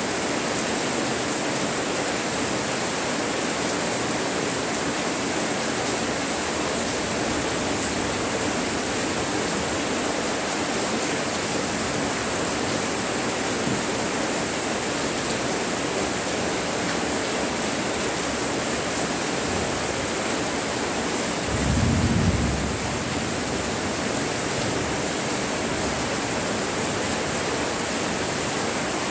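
Rain falling steadily as an even, continuous hiss. About two-thirds of the way through, a brief low rumble swells for a second or so.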